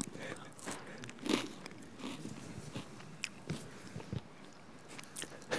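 Crunchy stick snack bitten and chewed close to a microphone: irregular crisp crunches and cracks, the loudest a little over a second in.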